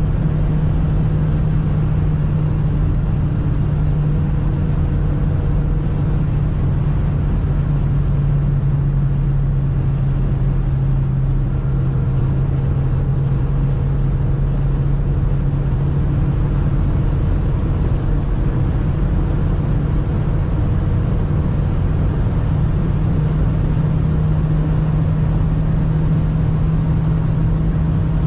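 Interior of a 2002 Skoda Octavia with its 1.8-litre turbocharged four-cylinder petrol engine droning steadily at high autobahn speed, under tyre and wind noise inside the cabin. The engine note sags a little around the middle and climbs again toward the end as the revs rise.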